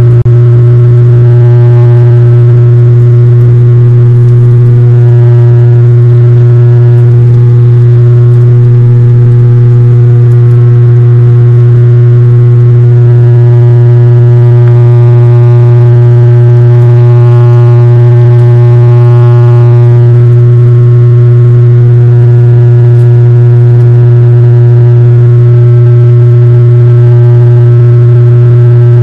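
Turboprop airliner in flight heard from inside the cabin: a loud, steady propeller drone, one low hum with a stack of overtones above it.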